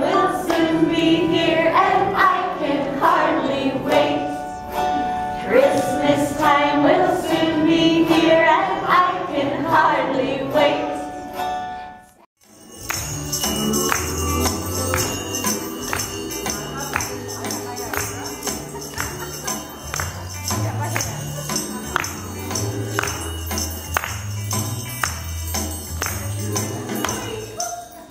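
A group of women and small children singing together for about twelve seconds, then after a sudden break, music with a stepping bass line plays while tambourines and jingle bells are shaken and tapped along to it.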